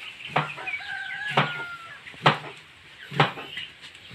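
Knife chopping through thin slices of unripe banana onto a board, a sharp stroke about once a second. Between about one and two seconds in, a chicken gives a drawn-out, slightly falling call.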